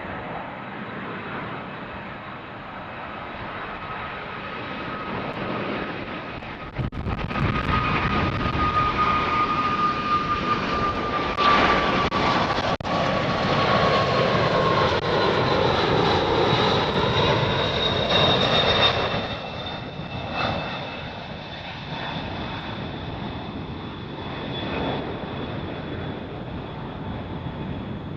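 A jet airliner passes close by. The engine noise builds, is loudest for about twelve seconds in the middle, then fades, while a thin engine whine slowly drops in pitch as the aircraft goes past.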